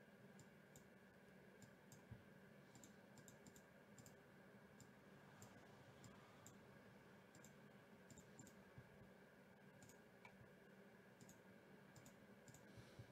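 Faint, irregular computer mouse clicks over near-silent room tone.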